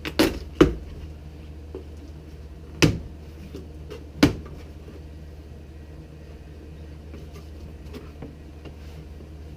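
Knocks from a cardboard shipping box and its packing being handled: two sharp knocks in the first second, another near three seconds and one more about a second and a half later, with a few faint clicks between.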